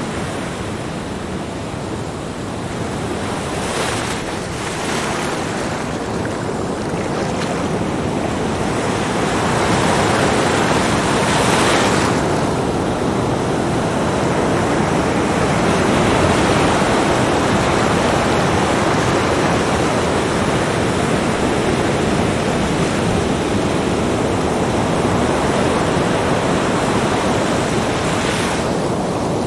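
Small waves breaking on a sandy beach and washing up the shore: a steady surf rush with several hissing breaks, growing louder about ten seconds in.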